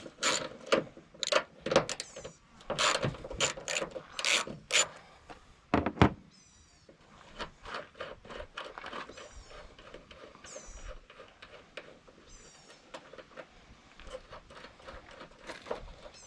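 Ratchet wrench clicking in quick bursts as a 10 mm bolt on a Jeep JK's hood latch is worked loose, with one sharp knock about six seconds in. After that come fainter, scattered clicks and a few short high squeaks.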